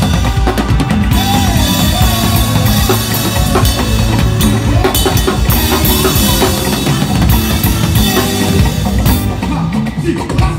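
Acoustic drum kit played in a fast solo: rapid strokes on the snare and toms over the bass drum.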